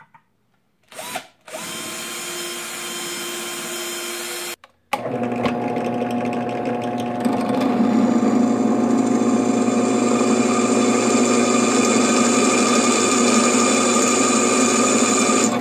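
Cordless hand drill running for a few seconds to start a hole in a Damascus steel knife blade, stopping about four and a half seconds in. A drill press then runs steadily, its bit drilling through the steel blade, and the sound grows louder about seven seconds in.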